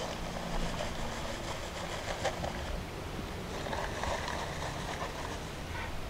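Dry Quikrete concrete mix pouring out of a paper bag onto rocks: a steady rushing hiss.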